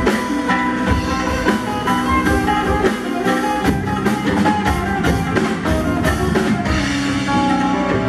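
Live band music: a drum kit played with quick strokes on the drums and cymbals, with guitar notes over it.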